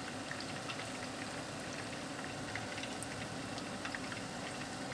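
Battered chicken strips deep-frying in plenty of oil over high heat: a steady sizzling and bubbling, with small scattered crackles.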